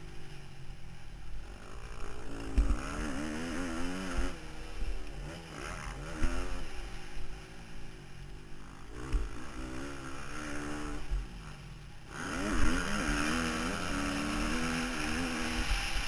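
Husqvarna TC 250 four-stroke single-cylinder motocross engine revving up and dropping back again and again as the rider shifts and rolls on and off the throttle round the track, with occasional low thumps.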